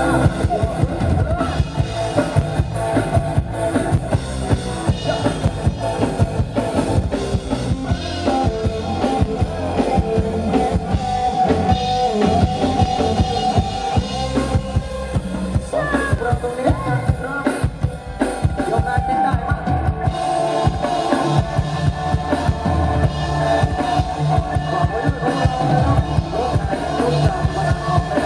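Live band amplified through a Thai parade sound truck's loudspeaker stacks, playing an instrumental passage: a drum kit keeps a steady, driving beat under electronic keyboard melody lines.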